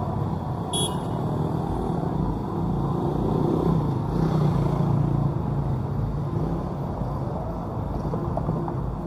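City street traffic: cars and motorcycles driving past with a steady engine and tyre rumble, swelling as one vehicle passes closer near the middle. A single short click about a second in.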